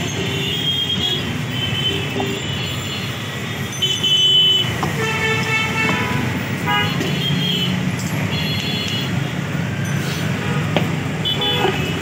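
Steady road traffic rumble with repeated short horn toots sounding on and off.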